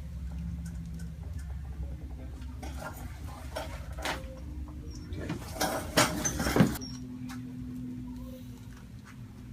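Spinal joints cracking during a chiropractic 'ring dinger' adjustment: a quick cluster of pops and cracks about six seconds in, after a few scattered small clicks. A low hum fades out about three seconds in.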